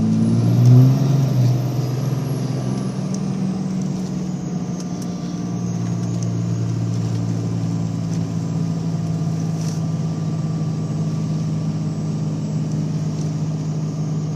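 Dodge pickup's Cummins diesel engine running while driving on a snowy road, with a brief rev about a second in, then steady running.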